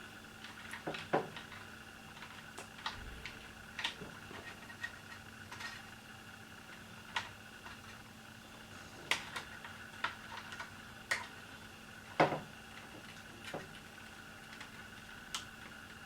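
Scattered small clicks, taps and knocks of hands and tools working on the wiring inside an opened box fan, over a faint steady hum. The loudest knocks come about a second in and about twelve seconds in.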